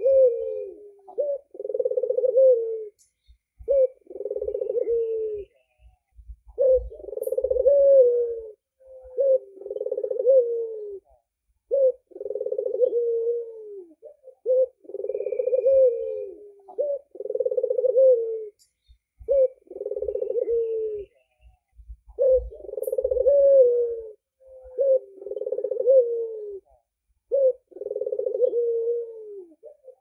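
Albino red-eyed Barbary dove (puter) cooing over and over, a long run of low rolling coos of a second or two each with short gaps between them, given as it bows on its perch.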